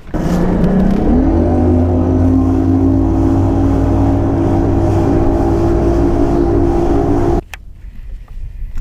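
Bass boat's outboard motor throttling up, its pitch rising over the first second or so, then running steadily at speed; it cuts off suddenly about seven seconds in.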